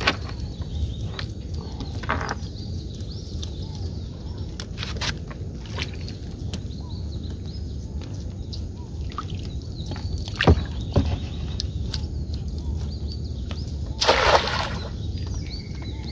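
Cast net landing on the water with a short splash near the end, over a low steady rumble with faint water sloshing. A sharp knock comes about ten seconds in.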